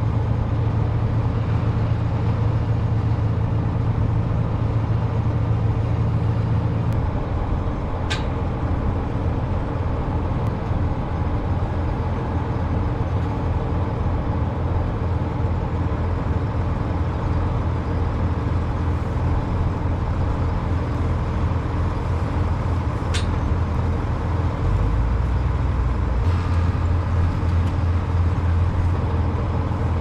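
Tractor engine running steadily under way, its note dropping about seven seconds in and shifting again near the end. Two brief high squeaks cut through, once about a quarter of the way in and once about three-quarters in.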